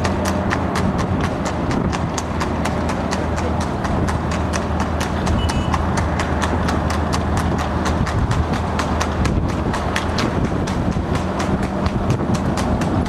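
Trotting horse's hooves clip-clopping on a wet tarmac road in a quick, even rhythm while it pulls a racing sulky, over the steady low hum of a vehicle engine.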